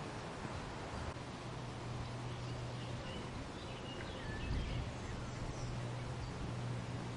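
Wind blowing through a weeping willow, a steady rustle of leaves, with a few faint bird chirps and a steady low hum underneath.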